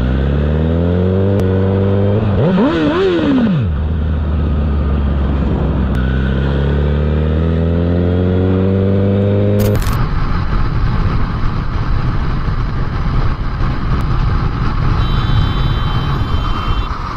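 Sportbike engine pulling hard, its pitch climbing as it accelerates, with one quick rev that rises and falls about three seconds in. After about ten seconds it changes to a steady rush of wind and engine noise from a motorcycle at highway speed.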